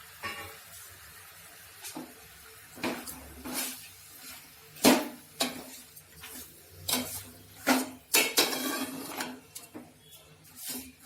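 A spoon stirring chicken and tomatoes in a cooking pan, with irregular clinks, knocks and scrapes against the pan. The loudest knocks come about five and eight seconds in.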